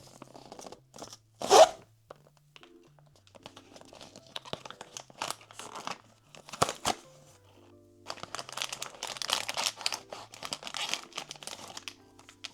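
Blind box packaging being opened by hand: a sharp tearing snap about a second and a half in, scattered rustles, then a long stretch of plastic wrapping crinkling and tearing from about eight seconds in, over soft background music.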